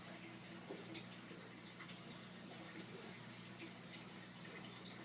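Faint small clicks of lock pins and springs being set into the chambers of a seven-pin Paclock 90a-pro core during re-pinning, over a low steady hum.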